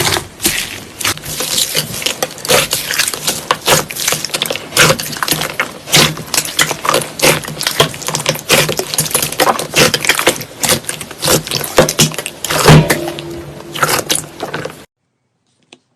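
Slime being squeezed and poked by hand, a dense run of sharp crackles and pops that stops suddenly near the end.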